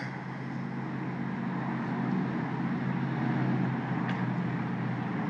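An engine running with a steady low hum, growing a little louder through the middle and easing off toward the end.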